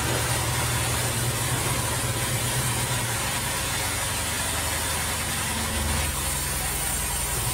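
Sawmill band saw machinery running steadily: a constant low mechanical hum under a hiss, the low hum shifting slightly about halfway through.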